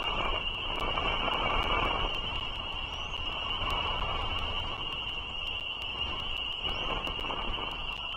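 Outdoor nest-camera microphone noise: a steady rushing hiss with a constant high-pitched whine and regular faint clicks, and a few faint short chirps.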